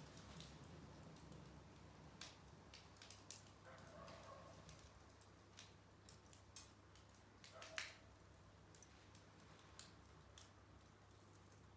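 Small wood fire crackling quietly: scattered light pops and snaps at an uneven pace, with one louder pop about eight seconds in.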